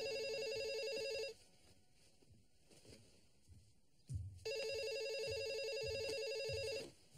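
Telephone ringing with a fast warbling trill: one ring ends about a second in, and after a pause of about three seconds a second ring sounds for about two and a half seconds. A few soft low thuds come in the gap and under the second ring.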